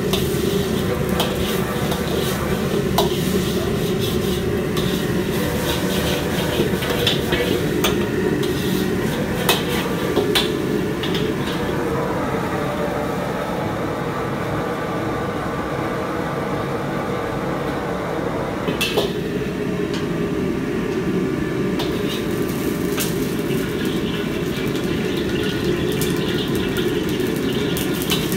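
A metal spatula scraping and clanking against a wok while egg is stir-fried, over the steady low roar of a gas wok burner. The clatter is busy in the first third, thins out later, and there is one sharp clank past the middle.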